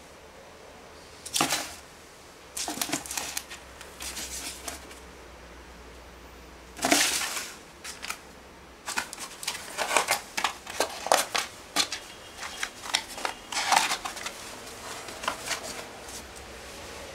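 Cardboard box scraping and knocking on a wooden parquet floor, with the scratch and rustle of a kitten's claws and paws on the cardboard as it plays with the box. A few separate scuffs come first, then a fast run of scratching and tapping about halfway through.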